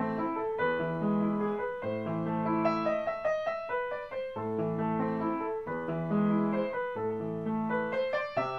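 Background piano music: a gentle melody of short notes over sustained low chords that change every second or two.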